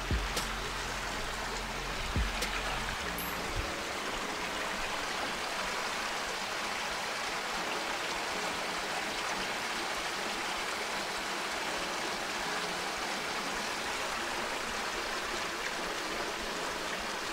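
Water from rock waterfalls splashing steadily into a backyard swimming pool, a continuous rushing, splashing sound. A low steady hum and a few light knocks under it stop about three and a half seconds in.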